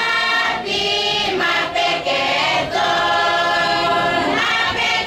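A choir of women singing together, in phrases of long held notes with brief breaks between them.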